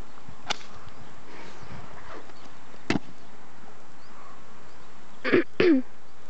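Two sharp clicks, then two short, quick vocal sounds from a person near the end.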